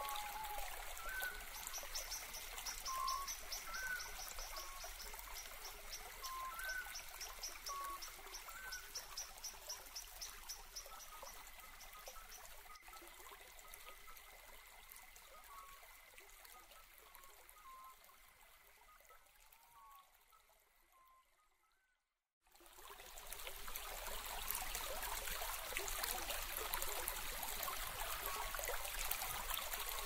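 Quiet ambience of trickling stream water with scattered short bird chirps and, in the first ten seconds or so, a rapid high trill. It fades out about two-thirds of the way through, drops to silence for about two seconds, then comes back.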